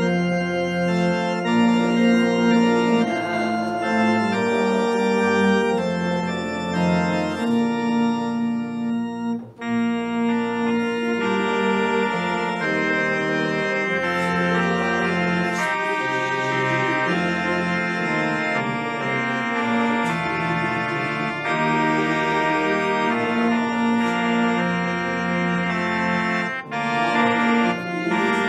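Organ playing held chords that change every second or two, with a short break about nine and a half seconds in.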